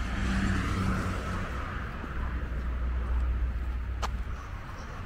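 Street ambience of road traffic: a car passing with a low rumble and tyre noise that fades over the first couple of seconds. A single short sharp click about four seconds in.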